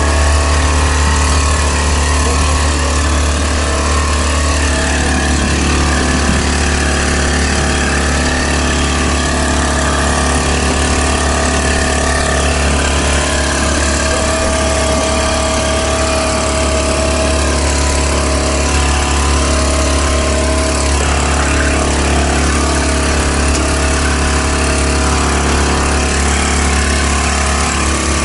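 Tractor engine running steadily at a constant speed, a low drone heard close up from the potato planter it pulls.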